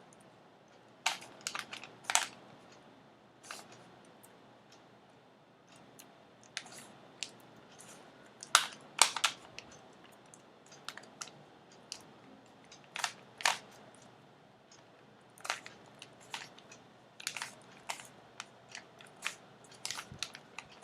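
Rubik's cube being twisted by hand: irregular sharp plastic clicks and clacks, coming in small clusters every second or two with short pauses between.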